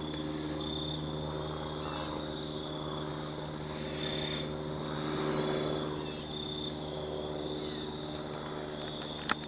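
A steady, low, engine-like drone holding one pitch, with a faint high tone that comes and goes above it. It swells a little about five seconds in, and a single sharp click comes near the end.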